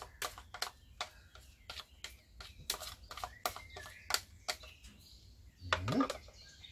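A metal spoon clicking and scraping against a small bowl as barbecue sauce is scooped out over a pork roast, about two to three clicks a second. Birds chirp faintly, and a brief rising hum comes near the end.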